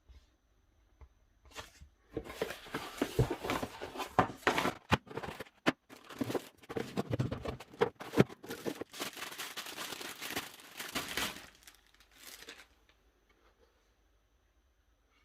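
Packing material being unwrapped by hand, crinkling and tearing with sharp clicks for about ten seconds. It stops near the end after one short last rustle.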